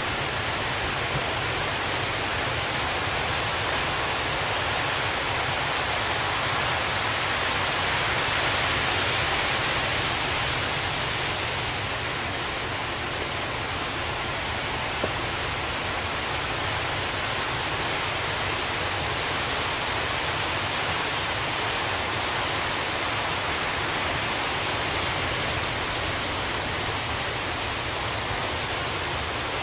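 Heavy surf breaking on a rocky shore: a steady, loud roar of waves and whitewater that swells a little about eight to ten seconds in.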